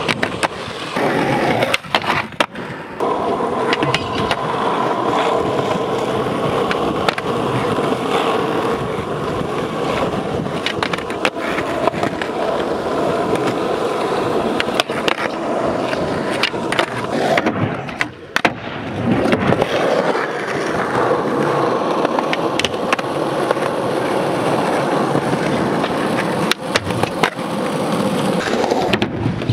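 Skateboard wheels rolling loudly over rough, worn asphalt, with sharp clacks of boards popping and landing several times and a grind along a concrete ledge near the start.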